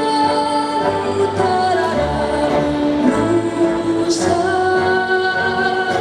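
A girl singing a solo vocal piece with instrumental accompaniment, holding long notes that glide into the next pitch.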